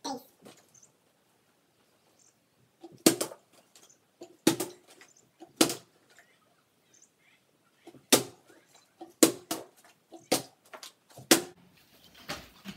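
Plastic water bottle flipped again and again onto a wooden parquet floor: about seven sharp knocks as it lands or topples, spaced roughly a second or two apart from about three seconds in.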